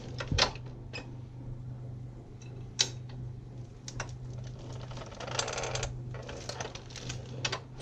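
Hand-lever needle-pad honey perforating machine working a frame of heather honey comb: scattered mechanical clicks and a short rattle about five seconds in as the needle pads are squeezed into the cappings and the frame steps along, over a steady low hum.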